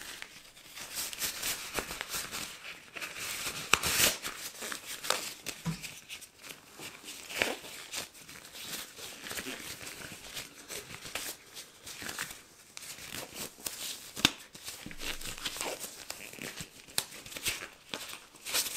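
Black disposable gloves being pulled on and worked down over the fingers: a continual rubbery crinkling and rustling with many sharp crackles.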